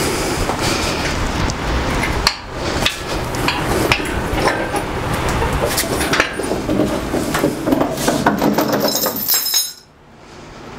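Steel shop crane on casters being pushed across a concrete floor with a heavy air compressor hanging in chains: wheels rolling, with chains and steel clanking and rattling throughout. The clatter stops abruptly near the end.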